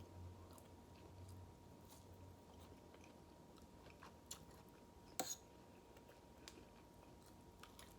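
Faint, close chewing of ribeye steak with soft wet mouth clicks, one sharper click about five seconds in.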